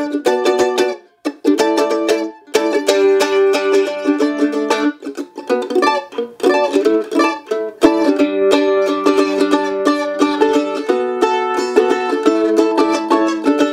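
A-style mandolin strummed fast with a pick through a chord progression, the chords ringing out densely, with two brief breaks about a second and two and a half seconds in.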